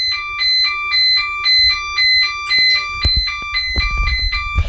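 Electronic emergency alert tone switching between a high and a low pitch, about two high-low cycles a second. It carries on steadily to the end, with low rumbling noise rising under it in the last second or two.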